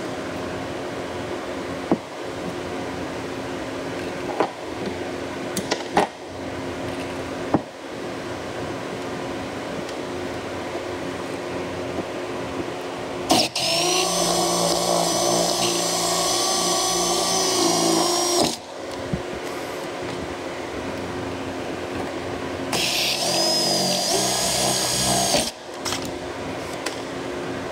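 Cordless drill running in two bursts, the first about five seconds long and the second about three, each a steady motor whine with its bit working in the sending unit's metal flange. Before that come a few sharp clicks and knocks of the metal unit being handled, over a steady background hum.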